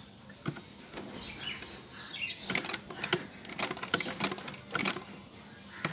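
Old black domestic sewing machine stitching slowly, an uneven run of clicks and knocks from the needle and mechanism, with a sharp click near the end.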